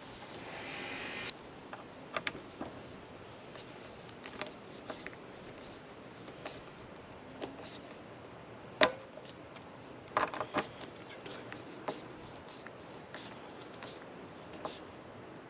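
Torque screwdriver turning hex screws into a motorcycle windshield's well nuts: quiet rubbing and scattered small clicks, with a sharper click about nine seconds in and a quick cluster of clicks about a second later.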